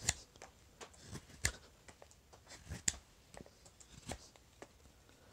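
Knife slicing thin shavings off a wooden spoon blank along the grain, thinning the bowl: a string of short, sharp cuts at irregular intervals, four of them louder, about a second and a half apart.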